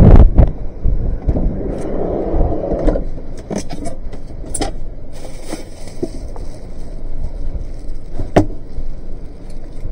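Wind buffeting the microphone, dying away within the first second. Then the handling noise of fishing gear being moved about inside a van: rustling, several sharp clicks, and one loud knock about eight seconds in.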